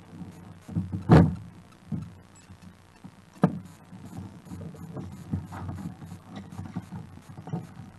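Strong wind buffeting the microphone on a kayak at sea, a gusting rumble, with water moving around the plastic hull and two sharp knocks, about a second in and a couple of seconds later.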